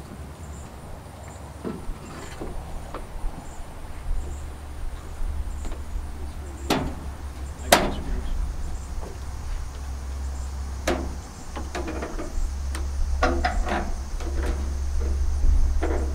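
Scattered sharp knocks and clanks as aluminium gazebo roof frame parts are handled and fitted, spread through the second half with a quick cluster near the end.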